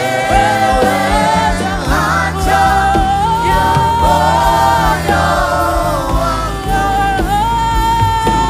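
Live gospel worship music: a group of singers holding long notes together, backed by keyboard, guitar and a steady bass line.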